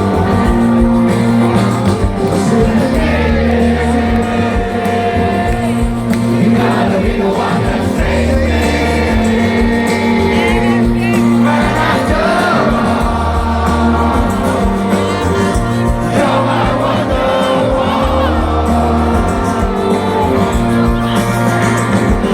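A rock band playing live, with a singer and a steady, held bass line, and some crowd noise from the audience.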